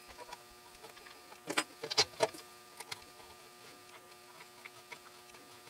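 A few light clicks and taps of a screwdriver and screws on a 3D-printed plastic plate as it is screwed onto the drill grinder's housing. They come mostly in a short cluster between about one and a half and two and a half seconds in.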